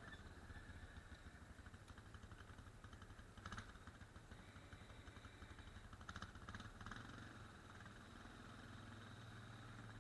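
Faint ATV engine running steadily at low revs, with a few short clatters about three and a half seconds in and again between six and seven seconds in.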